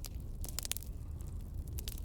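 Wood fire crackling: scattered sharp pops and snaps over a steady low rumble.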